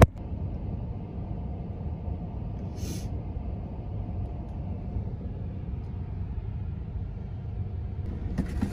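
Steady low rumble of a car idling, heard from inside its cabin, with a brief hiss about three seconds in.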